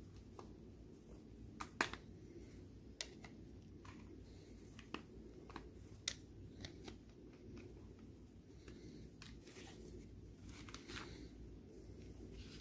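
Faint, irregular clicks and taps of a screwdriver and plastic clips as a steering-column switch and clock-spring housing is worked apart by hand, over a low steady hum.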